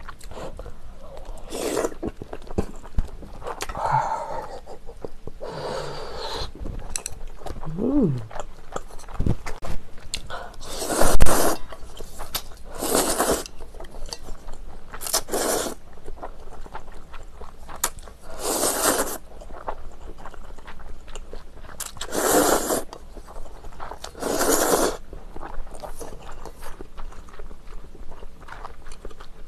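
Close-miked eating of instant ramen: noodles slurped in short bursts every few seconds, with chewing between them. A sharp knock about eleven seconds in is the loudest sound.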